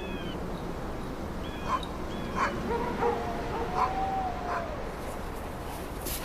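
Sled dogs yelping, barking and whining: several short high yips, a few sharp barks, and one longer whine that falls slowly in pitch about two-thirds of the way in, over a steady background hiss.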